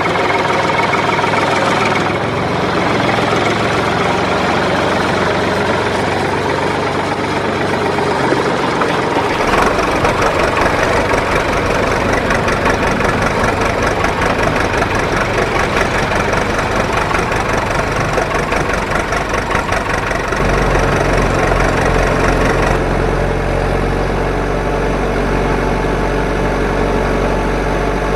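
Steady engine-like running sound, changing abruptly a few times, about 2, 9, 20 and 23 seconds in.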